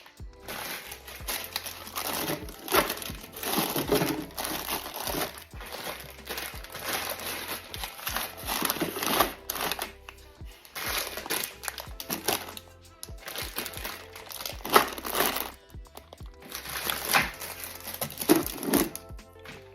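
Plastic packaging crinkling and rustling in repeated bursts, over background music.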